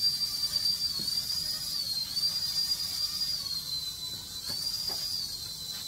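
Tiny electric motors and coaxial twin rotors of a hand-controlled infrared flying toy helicopter spinning with a high whine. The pitch dips and climbs back several times as the motors slow down and speed up.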